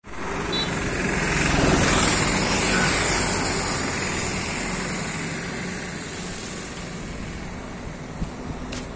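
A passing road vehicle: steady engine and road noise that builds to a peak about two seconds in, then slowly fades as it moves away.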